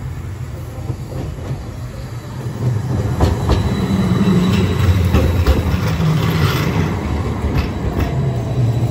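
Hiroshima Electric Railway Green Mover low-floor tram passing close by on street track: its low rumble swells about three seconds in, with sharp clacks of the wheels over the rails and a faint high steady whine.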